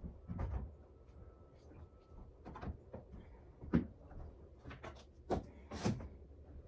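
Room door being opened: a sharp latch click a little past the middle, among several softer knocks and thumps.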